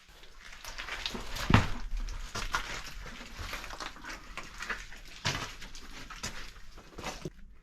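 A hiker's irregular footsteps, scuffs and clothing or pack rustle while scrambling over rock, with a louder knock about a second and a half in.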